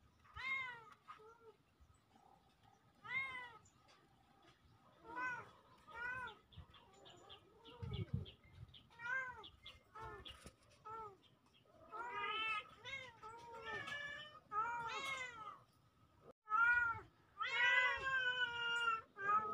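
Kittens meowing over and over: short high mews that rise and fall in pitch, one every second or two, coming louder and closer together in the second half and ending in a longer drawn-out call.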